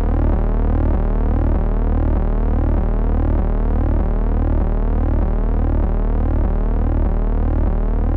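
Steady electronic synthesizer tone over a low hum, with a sweeping pattern repeating about twice a second.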